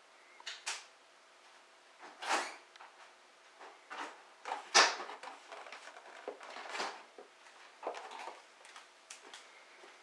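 A cardboard beer case crackling and crunching in irregular bursts as a cat moves about inside it, the loudest crunch about five seconds in.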